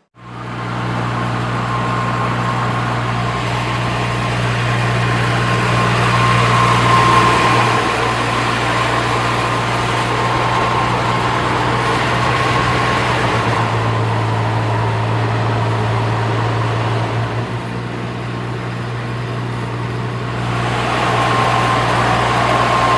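The engine of a piece of snow removal machinery running steadily, a low hum with a faint high whine above it.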